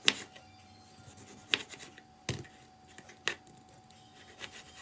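A few sharp clicks and knocks of small hard objects against kitchenware, about four distinct ones with lighter ticks between: ingredients being handled and dropped into a cup.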